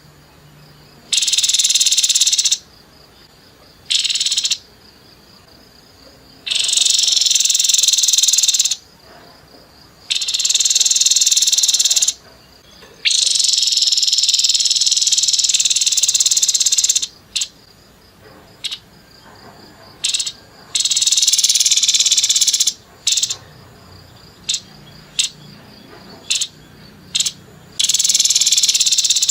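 Grey-headed babbler (tepus kepala abu) giving harsh, high-pitched rapid calls in repeated bursts. Some bursts run two to four seconds and others are brief, with short pauses between them.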